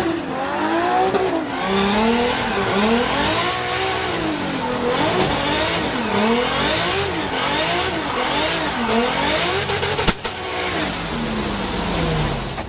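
Drift car engine revving hard and dropping over and over, about once a second, as the driver works the throttle through a drift, with tyre noise underneath. There is a single sharp click about ten seconds in.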